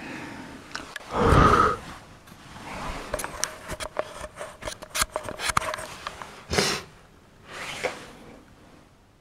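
Handling noise from a camera being moved: a louder noise about a second in, then a quick run of clicks and knocks, and two short rushes of noise near the end.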